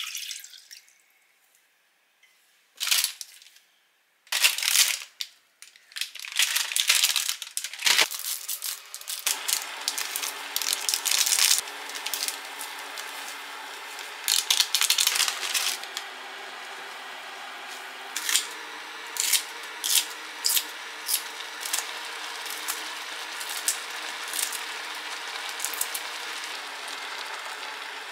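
Water poured briefly into a cast iron pot, then a few separate sharp knocks and rustles. From about nine seconds in, water boils steadily in the pot, with the crinkle of a ramen seasoning packet being squeezed out and many short clicks and taps over it.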